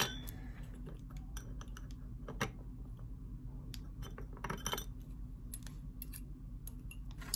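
Small metal snowflake tea-light-holder pieces clicking and clinking as they are handled and fitted together. There are a few separate light taps: the sharpest right at the start, and a quick cluster about four and a half seconds in.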